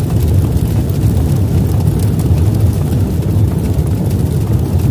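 A loud, steady deep rumble.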